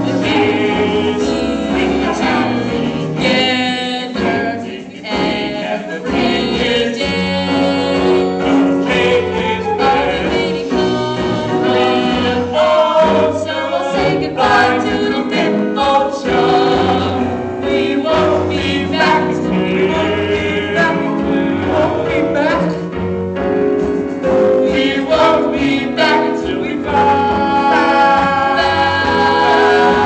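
Musical theatre ensemble singing a chorus number together over an instrumental accompaniment.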